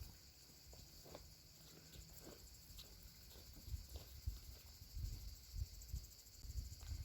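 Outdoor field ambience: a steady, high insect chirring, with scattered soft low thumps and rustles that grow more frequent in the second half.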